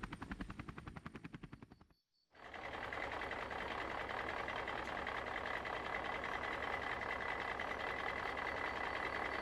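A rapid, even clatter that fades out over the first two seconds. After a brief cut to silence, a steady engine-like drone with a faint high whine begins.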